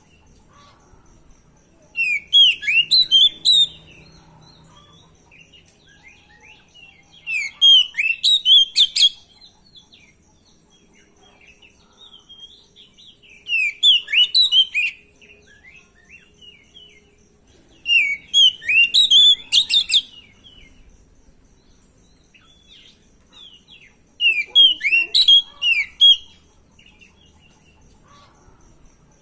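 Oriental magpie-robin (kacer) singing as a lure song: five bursts of fast, varied whistled phrases, each about two seconds long, coming every five to six seconds.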